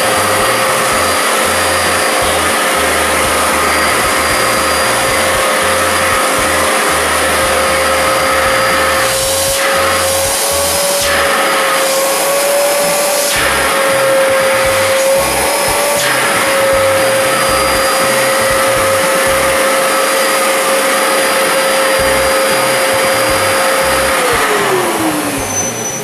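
Karcher Puzzi 8/1 C spray-extraction cleaner's 1200 W suction turbine running with a steady whine and airflow rush, its pitch wavering a little midway. Near the end the whine falls away as the motor spins down.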